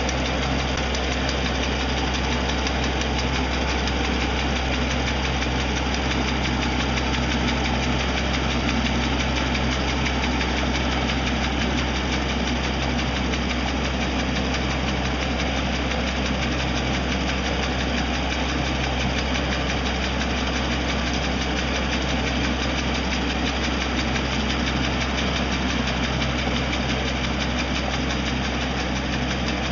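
Tractor engine running steadily, powering a boom-mounted hydraulic brush trimmer whose cutter head is working through brush and undergrowth.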